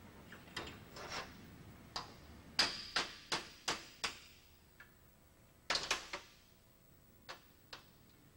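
Hammer blows on a screwdriver clamped in a bench vise, knocking its handle off. A quick run of sharp metallic strikes comes in the first four seconds, then a few more after a short pause.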